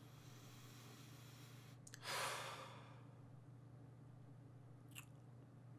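A man breathes in slowly, then lets out one long sigh about two seconds in while savouring a sip of whisky. There is a faint click near the end.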